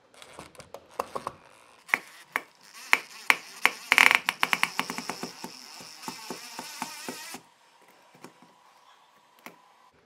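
Cordless drill-driver driving a screw into a metal ceiling-box mounting bracket. Sharp clicks and knocks come first, then the drill runs with a steady whine and rapid clicking for about five seconds and cuts off suddenly.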